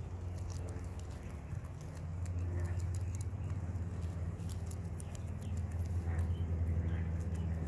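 Guinea pigs chewing and crunching kale and grass, a dense patter of small crunching clicks, over a steady low hum.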